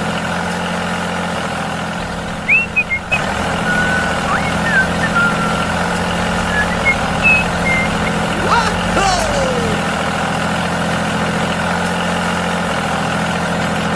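Steady engine drone of a mini tractor pulling a tined cultivator through sand, with a few short high chirps over it.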